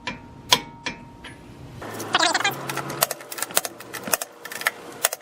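Hand ratchet wrench clicking in short, irregular runs of sharp metal clicks while the tie rod end nut is tightened, with quicker clicking in the second half.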